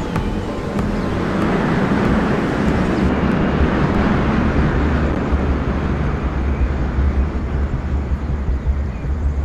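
Steady deep rumble with a rushing, wind-like noise over it, a flight sound effect for a fast-moving craft; the hiss thins out about three seconds in.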